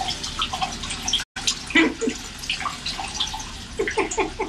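Water running from a bathroom tap into a ceramic washbasin, splashing and dripping as a cat drinks from the stream. The sound cuts out briefly about a second in.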